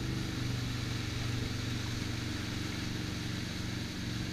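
Motorboat engine running steadily under way at surfing speed, a constant drone under the rushing wash of the boat's wake.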